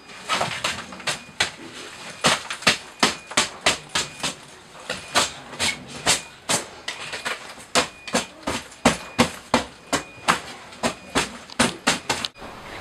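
A dark fabric backpack being shaken and flapped hard, a rapid run of sharp cloth snaps and swishes, about three a second, that stops suddenly just before the end.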